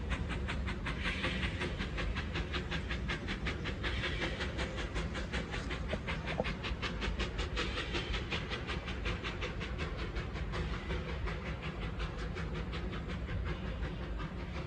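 Narrow-gauge steam locomotive working a train away, its exhaust beating in a quick steady rhythm over a low rumble and fading slightly as it goes.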